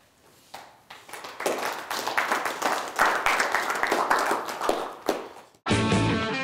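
Applause from a small audience, building up about a second in and dying away after about five seconds. Near the end it cuts abruptly to rock music with electric guitar.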